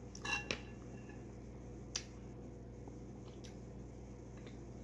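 Metal spoon scraping and clinking against a ceramic bowl: a short cluster of clicks with a brief ring in the first half-second, then single sharp clicks about two and three and a half seconds in, over a faint steady hum.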